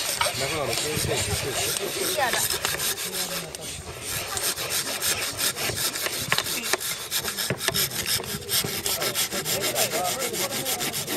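Hand saw cutting through bamboo in quick, steady back-and-forth strokes.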